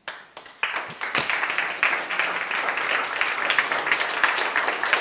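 Audience applauding: a few scattered claps at first, building within the first second into steady, dense applause.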